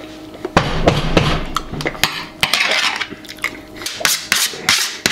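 Metal fork scraping and clinking against a metal baking sheet in a quick, irregular series of strokes while scooping up melted nacho cheese.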